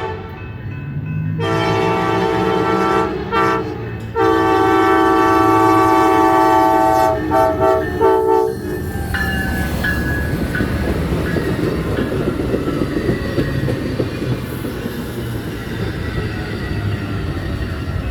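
Amtrak passenger train's locomotive horn blowing two long, loud blasts with a short break between them, then a few quick toots. After the toots, the train runs by with a dense rumble and wheels clattering over the rail joints.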